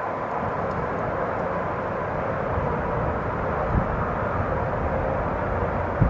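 Gusty winter wind buffeting the microphone in irregular low thumps, stronger from about halfway through with a gust near the end, over a steady rushing noise.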